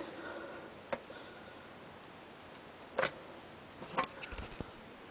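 Sharp plastic clicks of OLPC XO laptop buttons being pressed to recalibrate the touchpad: one about a second in, a louder one about three seconds in and another near four seconds, followed by a few faint ticks and a brief low bump.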